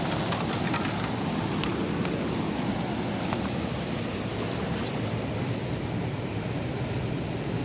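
Steady rushing of a fast white-water river, with a few faint clicks and taps in the first few seconds.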